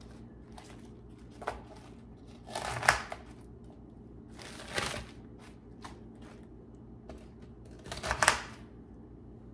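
Kitchen knife cutting the stalk ends off romaine lettuce hearts on a plastic cutting board: four short cuts spread over several seconds, two of them ending in a sharp click of the blade on the board.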